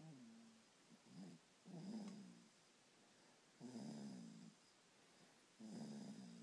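Someone asleep and snoring faintly: short pitched snores, the strongest coming about every two seconds.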